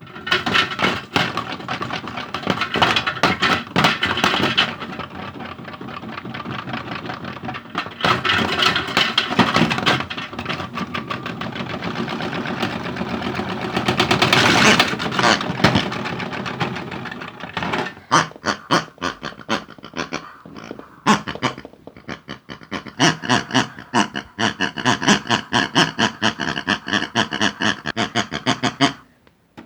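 Hotpoint toy washing machine running, its small motor humming while hard objects loaded into the drum rattle and clatter against it. About halfway through, the knocking thins out into a looser, more rhythmic clatter.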